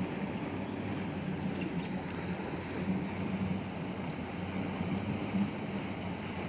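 Distant bass boat's outboard motor running hard across the lake, a steady low drone.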